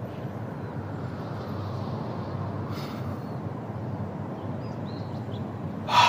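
Steady outdoor background ambience with a low, even rumble. A brief hiss comes about three seconds in, and there are a few faint high chirps toward the end.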